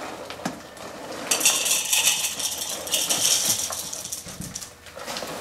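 Dry cat food kibble pouring from the bag into a small electric food chopper's container, a dense rattle of hard pieces hitting the container that starts about a second in and stops after about two and a half seconds.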